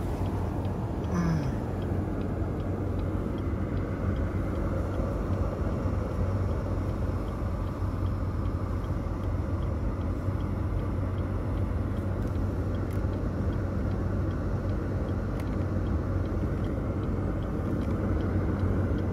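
2008 Chevrolet Malibu's four-cylinder engine idling: a steady low hum.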